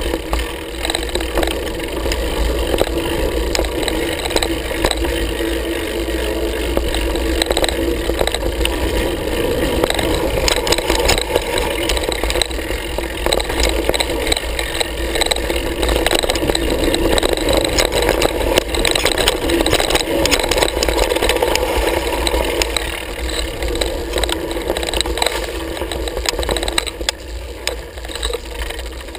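Mountain bike ridden fast down a dry dirt trail: wind buffeting the camera microphone and the bike rattling and clattering over bumps, with the tyres running on loose dirt.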